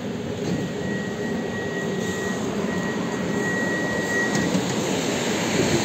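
Steady whirring hum of a standing EG2Tv 'Ivolga' electric train's onboard equipment, heard at its open doors. A high beeping tone sounds in several short pulses from about half a second in until about four and a half seconds in.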